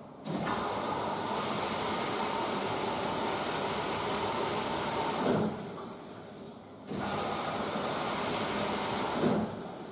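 Electrolux W465H washing machine making a loud hissing, rushing noise in two long bursts, the first about five seconds and the second about two and a half, each switching on and cutting off sharply.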